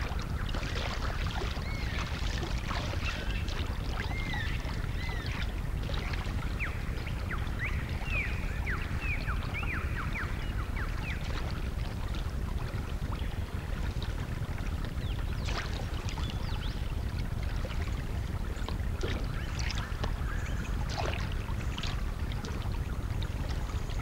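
River water running and lapping steadily, with occasional small splashes in the second half. A run of short, high chirping calls comes in the first half.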